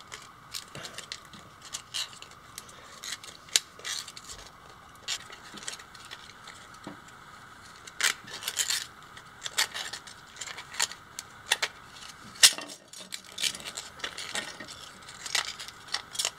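Irregular clicks and light metallic ticks of a coiled steel tape-measure spring being worked coil by coil into a plastic spring housing, in clusters with short gaps.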